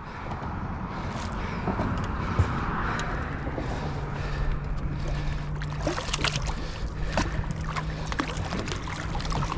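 Wind buffeting the microphone over water lapping against a small boat, with a low steady hum from about four seconds in and a few sharp ticks in the second half.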